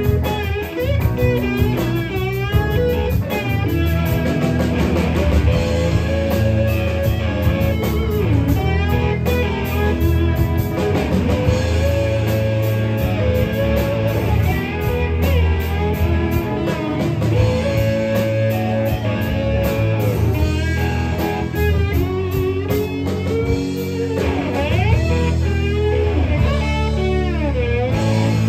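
Live rock band playing an instrumental passage: electric guitar lead with bent, wavering notes over bass guitar and drum kit.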